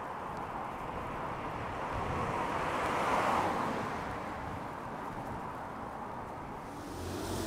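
A vehicle's tyres hissing past on a wet road, rising to a peak about three seconds in and fading, over a steady wash of wet-street noise. Near the end an engine comes close.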